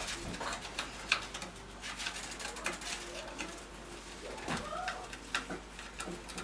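A newborn baby making a few soft coos and grunts, with scattered light clicks and taps.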